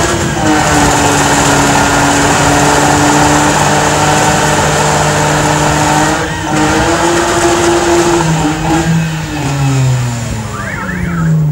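Opel Omega's engine held at high revs in a burnout, rear tyres spinning and smoking. The revs dip briefly about six seconds in, pick up again, then fall away near the end.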